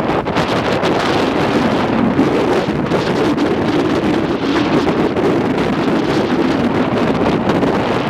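Gale-force wind buffeting the microphone: loud, continuous blustering noise.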